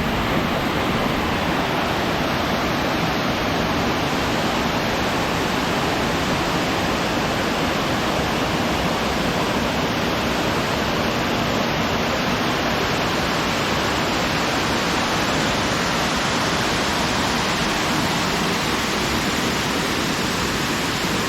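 A creek waterfall cascade rushing steadily, heard from close by: an even, unbroken wash of falling water.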